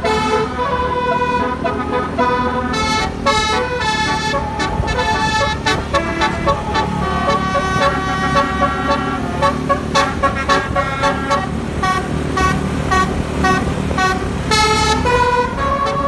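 Indonesian 'telolet' multi-tone bus horn playing a tune of held and changing notes, with a run of short, quickly repeated notes in the middle, over a steady low rumble.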